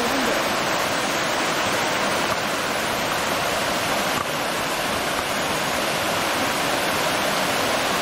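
Shallow stream running over rocks and stones: a steady, even rush of flowing water.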